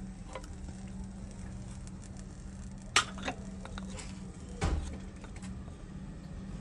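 A few sharp knocks and clinks of a wooden tool handle and steel fittings being handled against a steel jig and bench, two of them louder about three and nearly five seconds in, over a steady low hum.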